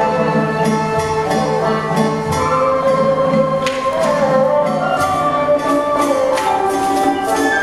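Traditional Vietnamese ensemble music accompanying a water puppet show: sustained melodic instrument lines over sharp percussion strikes about every second or so.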